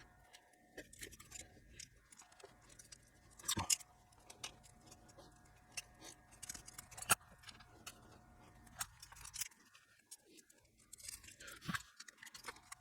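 Faint, scattered small clicks and clinks as a replacement speaker connector is fitted to a small amplifier's back plate and its small screws are turned in by hand, finger tight. The two loudest clicks come about a third and about halfway through.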